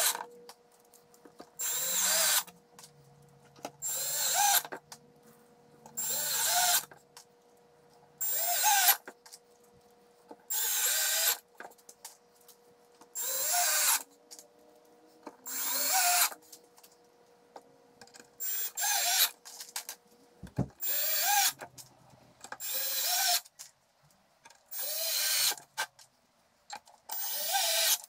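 Cordless drill driving screws into pine slats: about a dozen short bursts of the motor spinning up, one every two seconds or so, each ending as a screw seats.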